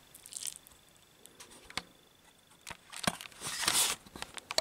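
Handling noise: a few light clicks and taps, then a short rustle of fabric and a sharp knock near the end as the camera is picked up and moved.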